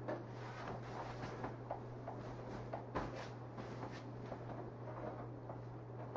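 Rustling and crinkling of the thin foam packaging wrap on a new flat-screen TV as it is pulled off and the set is handled, in a run of small irregular rustles and light knocks.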